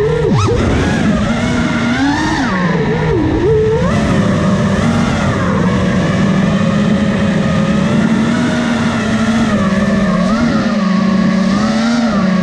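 FPV quadcopter's motors and propellers whining, the pitch swooping up and down sharply with the throttle in the first few seconds, then holding fairly steady with small rises and dips.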